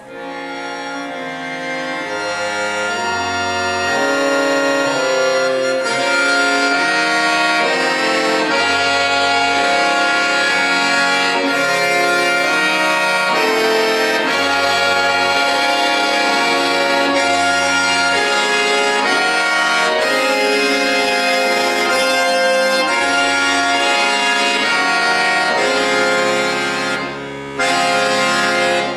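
Solo accordion playing loud, sustained chords over low bass notes. It swells up over the first few seconds and dips briefly near the end before coming back in full.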